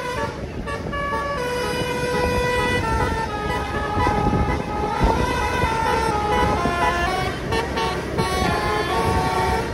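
Basuri musical horn on a tour bus playing a tune of held notes that step up and down in pitch, over the low rumble of a motor scooter and road noise.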